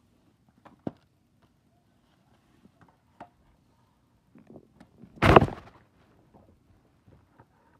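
Handling noise: a few faint taps and clicks, then one loud, dull thump a little past the middle, as of something knocked or set down on a soft surface.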